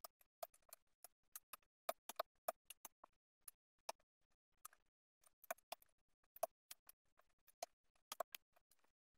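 Computer keyboard typing: faint, quick, irregular keystroke clicks in uneven runs with short pauses.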